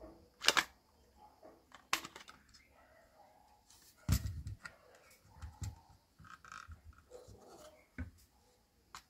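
Plastic housing of a motorised display turntable being handled and fitted back together: a few sharp clicks and knocks, the loudest about half a second and four seconds in, with light scraping and rubbing between them.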